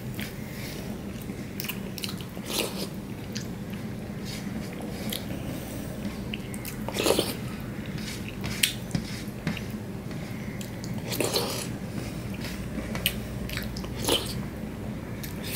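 Eating rice and dal by hand from a steel plate: fingers squishing the wet rice into the runny lentils and wet chewing and lip smacks, heard as scattered short clicks and squelches, loudest about seven seconds in, over a low steady hum.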